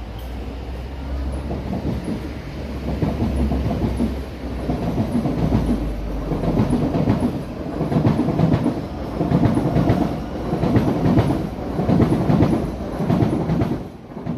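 A rumbling clatter that comes in even, repeated pulses about once a second, growing louder through the middle and staying loud until it cuts off suddenly at the end.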